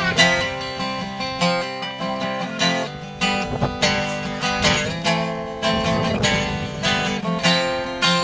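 Acoustic guitar strumming chords in a steady rhythm: an instrumental break in a country song, with no singing.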